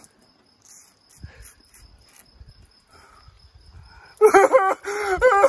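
About four seconds of faint quiet with a thin steady high whine, then a man's loud, wavering vocal cry that starts suddenly and runs to the end.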